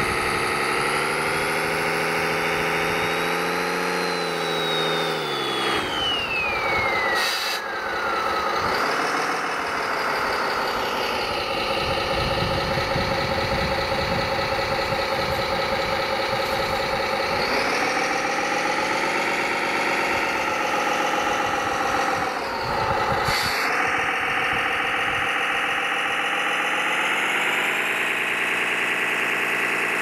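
Engine sound of a radio-controlled Kirovets K-700 model dump truck running steadily and shifting in pitch with the throttle. A whistle glides down in pitch a few seconds in, and rougher, noisier stretches come and go in the middle as the truck works in the sand.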